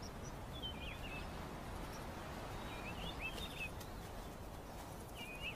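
Outdoor ambience of a steady low hiss, with a small bird chirping three times: each a quick run of short, high notes that flick up and down.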